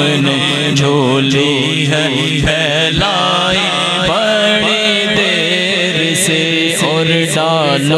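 A naat singer's voice sings long, ornamented notes over a steady low drone. Soft regular beats, about two a second, come in a few seconds in.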